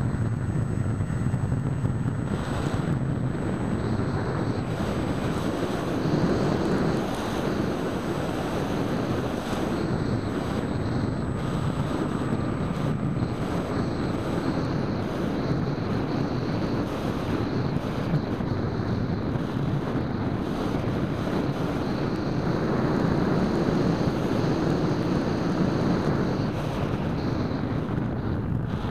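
Steady rush of airflow on the onboard keychain camera's microphone of an EasyStar 2 RC plane in flight, mixed with the drone of its electric motor and propeller. It swells a little about three-quarters of the way through.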